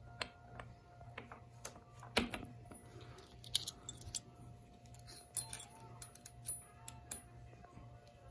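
Light metallic clicks and clinks, scattered and irregular, as a steel front sprocket and its lock washer are handled and slid onto a dirt bike's splined countershaft, over a low steady hum.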